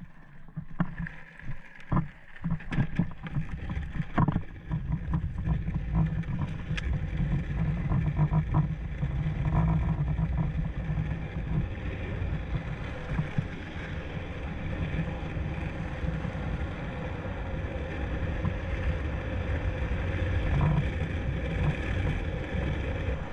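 Longboard wheels rolling on asphalt, a steady low rumble that rises about five seconds in as the board picks up speed downhill, with wind on the microphone. A few sharp knocks in the first few seconds as the board is handled and set down.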